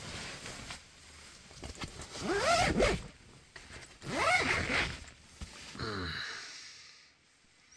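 A zip being pulled in three long strokes, the last one fainter.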